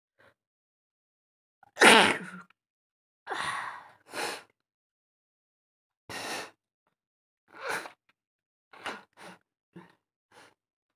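A woman's deliberately provoked sneeze, one loud burst about two seconds in, followed by a string of shorter, quieter breathy bursts.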